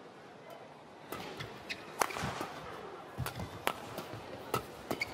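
Badminton rally: sharp, irregular cracks of rackets striking the shuttlecock, the loudest about two seconds in, with softer thuds of the players' footwork on the court in between.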